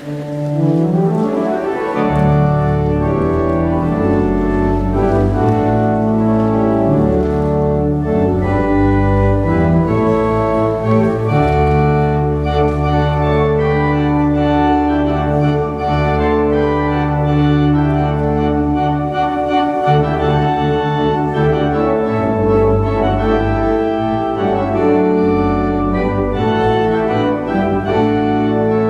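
Church organ playing loudly, starting abruptly at the outset, with long-held bass notes under moving chords.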